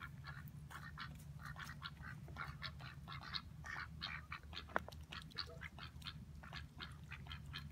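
White domestic ducks quacking faintly in a quick run of short calls, several a second, as they feed on bread in the water.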